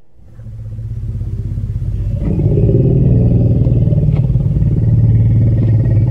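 Asian elephant's deep rumble, pulsing and swelling in over the first two seconds, then held loud.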